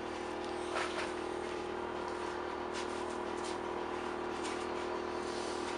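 A steady mechanical hum holding one constant tone, with a few light knocks as a white plastic bucket is picked up from the workbench.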